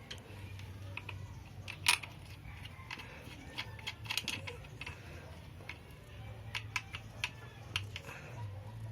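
Scattered sharp metallic clicks and clinks of bolts and a hand tool being handled while fastening a scooter's belt-drive cover, the loudest about two seconds in, over a steady low hum.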